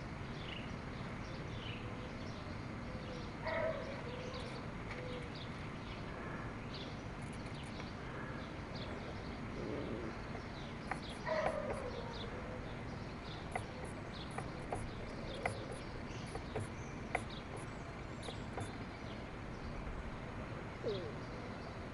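Birds calling now and then over steady outdoor background noise, with short chirps and a few low falling calls, and a run of quick high chirps through the middle.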